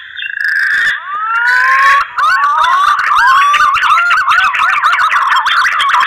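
Punai (green pigeon) mating call: fluty whistles, with a long upward-gliding whistle about a second in, then a fast run of wavering, warbling whistle notes from about two seconds in.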